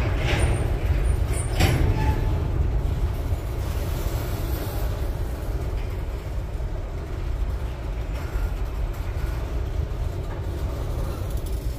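Freight train of covered hopper cars rolling past close by: a steady low rumble of wheels on rail, with a couple of sharp metallic clanks in the first two seconds.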